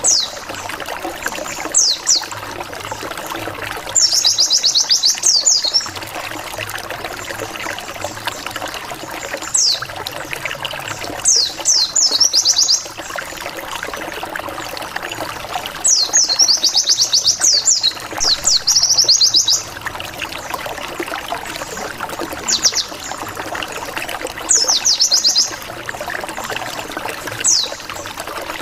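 White-eye (pleci) calling in bursts of quick, high, downward-slurred 'wit wit wit' notes, each burst a fraction of a second to about three seconds long and repeated every few seconds. This is the 'nembak' lure call used to make rival white-eyes answer. A steady watery hiss runs beneath.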